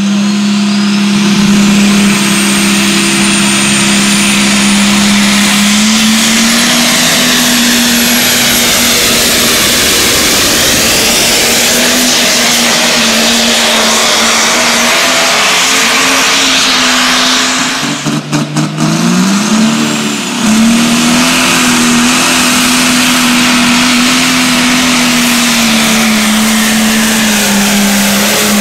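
Diesel pulling-tractor engines run wide open under the load of a weight-transfer sled, pouring black smoke. The result is a loud, steady drone with a high whine that climbs over the first few seconds. About two-thirds of the way through, the sound breaks briefly and the engine note dips, then climbs back to full power.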